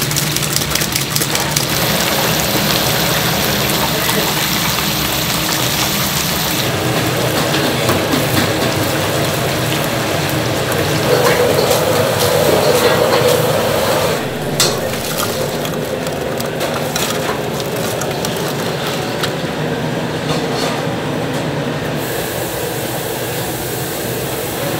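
Hot oil sizzling and crackling in a deep fryer around battered pieces, with wire mesh strainers dipping through the oil. A single sharp knock about halfway through.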